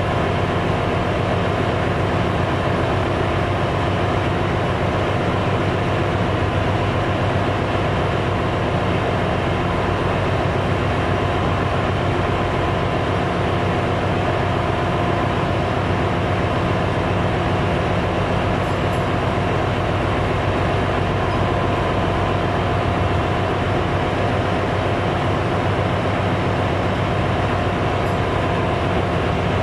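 Steady engine-room machinery noise aboard a cargo ship: a constant loud hum with a few held tones and no change. The main engine is stopped with its crankcase doors open, so this is other machinery running in the engine room.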